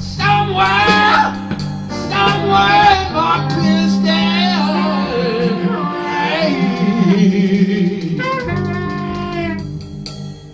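Blues band playing, with a male voice singing over guitar and bass. The music dies away near the end.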